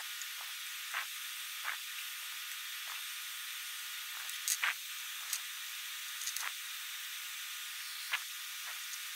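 Steady hiss with scattered small ticks and taps as a small circuit board, a soldering iron and solder wire are handled for hand soldering. The loudest taps come in a quick cluster about halfway through.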